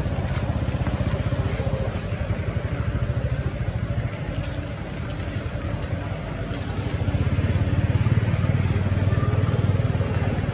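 Low engine rumble of a motor vehicle running nearby, steady, dipping briefly and then swelling louder about seven seconds in.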